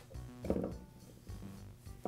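Quiet background music, with a brief scraping knock about half a second in as a pick pries the hard plastic piston bumper out of a flooring stapler's cylinder.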